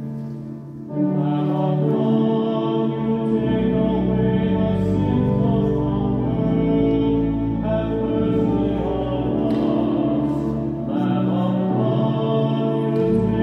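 Church music of held chords with singing, swelling in about a second in and moving from chord to chord.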